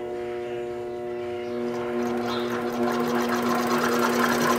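Singer industrial sewing machine driven by a newly fitted 90 V DC motor under a variable speed controller, running smoothly at a steady speed. It is a steady hum with a fast rhythmic clatter, getting a little louder in the second half.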